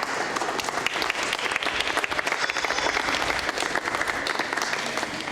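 Audience applauding, fading off near the end.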